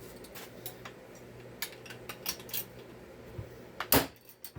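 Ratchet and metal chainsaw parts clinking on a workbench during a teardown, with scattered sharp clicks and one louder knock about four seconds in, over a steady low hum.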